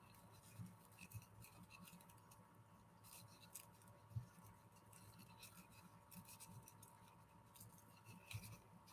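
Faint crinkling and scratching of crepe paper being rolled by hand around a toothpick, with a soft knock about four seconds in.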